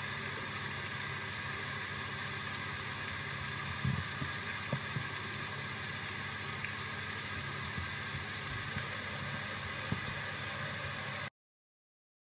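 Steady hiss of recorded rain with a few faint drop taps, which cuts off abruptly near the end.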